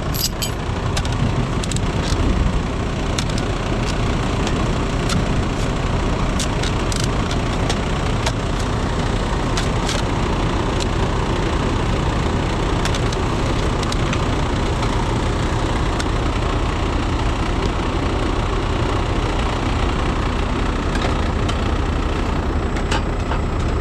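Heavy rotator wrecker's diesel engine running steadily at idle, with scattered sharp clicks and taps over it.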